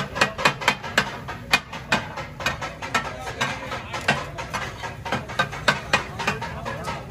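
Metal spatula blade clanging on a large flat iron tawa griddle, chopping and turning fish for katakat. A quick, rhythmic run of sharp strikes, about four a second, with a few short pauses.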